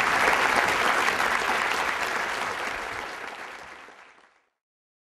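Audience applauding at the end of a stage performance, the clapping fading out and gone about four seconds in.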